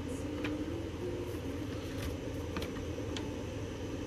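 Steady whir of a room air purifier's fan, with a few faint ticks of paper being handled.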